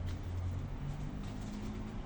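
Pigeon cooing low, over a steady low background rumble.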